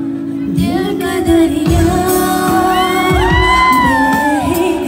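A woman singing live into a microphone over a pop backing track played through the hall's speakers, holding long sliding notes in the middle of the stretch.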